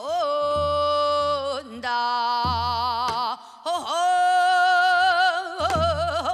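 A woman singing pansori in long held notes with a wide vibrato, swooping up into each note, with a brief breath about three and a half seconds in.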